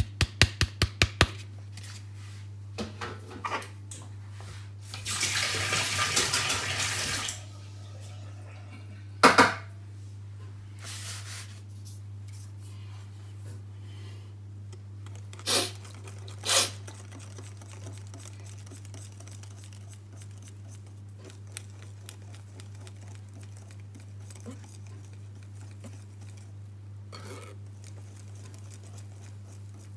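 Kitchen work sounds while baking: a quick run of clicks at the start, a couple of seconds of rushing, water-like noise, and a few sharp knocks of utensils or dishes, over a steady low hum.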